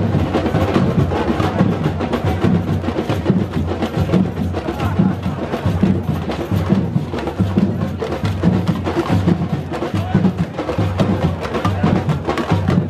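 Loud music driven by drumming and percussion, a steady pounding beat with sharp strikes throughout.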